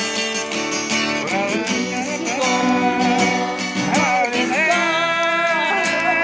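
An acoustic guitar strummed while a voice sings a melody, with the sung notes sliding between pitches about two thirds of the way through.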